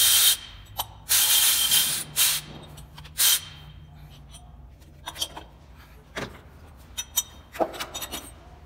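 Timing-belt cover scraping and rubbing against the engine in several harsh bursts over the first few seconds as it is worked free by hand, then a few light clicks and knocks.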